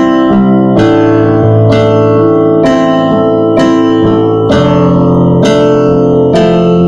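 Digital stage piano playing a repeated two-note melody phrase over sustained chords of a C–Am–F–G progression, with a new stroke about once a second. The phrase goes D D C C, then changes to D D E E near the end.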